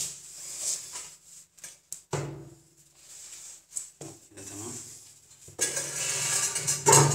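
Ceramic toilet being worked into place on the floor, with its pan connector going onto the wall drain: scattered knocks and clatters, then a longer scraping stretch near the end.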